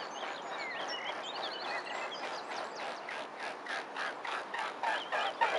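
Small birds chirping and singing, joined about two seconds in by a fast, even run of repeated animal calls, about three a second, that grows louder toward the end.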